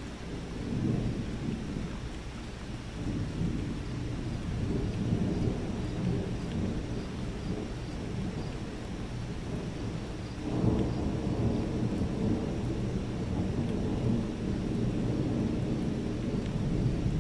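Thunder rumbling on and off over a steady hiss of rain, with a fresh rumble breaking in suddenly about two-thirds of the way through.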